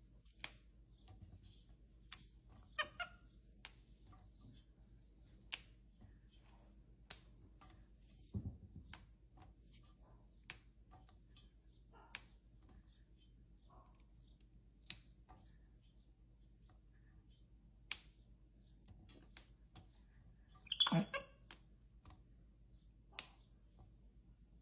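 Fresh green beans being snapped by a capuchin monkey's hands: faint, sharp snaps at irregular intervals, about one every second or two. A brief squeaky vocal call comes near the end.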